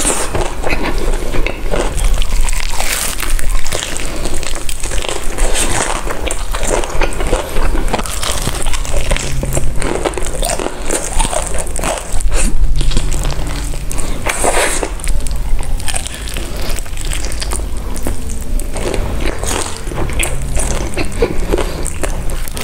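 Close-miked eating: crunchy bites and chewing, with irregular crackles throughout.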